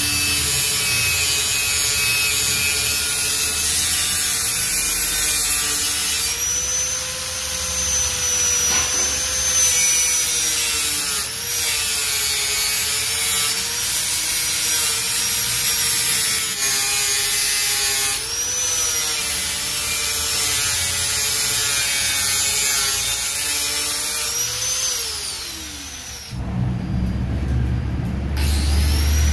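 Angle grinder with an abrasive disc grinding down a weld on stainless steel tube, its motor pitch dipping slightly as the disc bears on the metal. Near the end the motor winds down and a low hum takes over.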